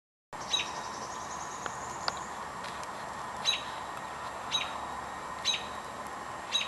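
A small bird chirping repeatedly: short, sharp calls that drop in pitch, about one a second, over a steady background hiss.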